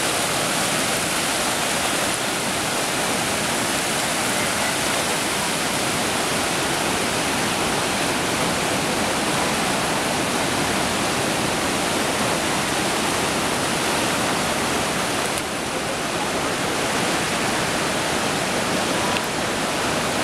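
Fast, muddy creek floodwater rushing across a flooded pasture and through fences, a loud, steady rush of water.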